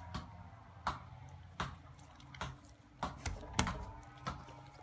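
Borax slime being squeezed and kneaded by hand, giving a string of about seven sharp, wet squelching clicks, one every half second to second.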